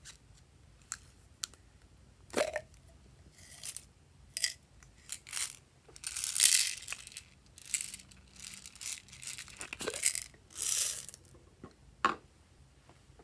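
Irregular crinkling and crackling from a clear plastic tumbler filled with crinkly clear slime as it is turned and tipped in the hands, in uneven bursts, the longest a little past halfway.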